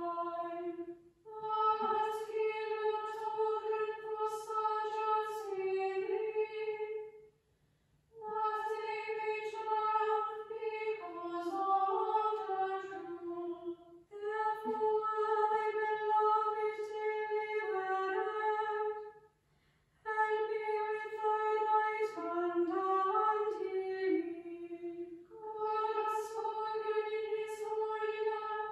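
A small all-female chapel choir singing a psalm to Anglican chant. Each verse is a long held reciting note that ends in a short run of moving notes, with brief pauses for breath between the verses.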